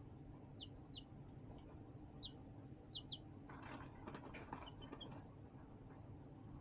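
Baby chicks peeping faintly: single short, high, falling peeps every second or so. A brief scratchy rustle comes about three and a half seconds in, then a few quick softer peeps, over a steady low hum.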